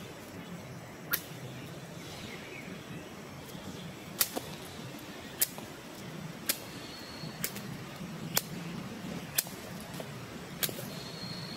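Sharp, loud clicks, nine in all, coming about once a second after a gap early on, over a faint steady background. A thin, high steady tone sounds briefly in the middle and again near the end.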